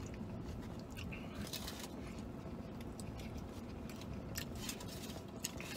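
A man chewing a mouthful of chicken and avocado burrito close to the microphone: quiet, irregular mouth clicks over a low background hum.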